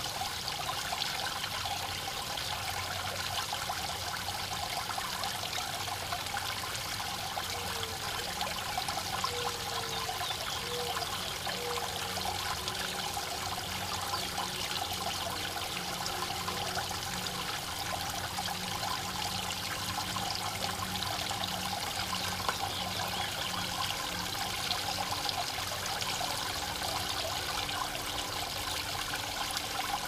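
Water from a small garden waterfall trickling steadily over stone ledges.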